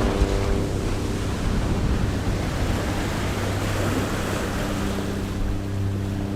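Sea waves washing and breaking on the shore, a steady rushing surf, with wind buffeting the microphone.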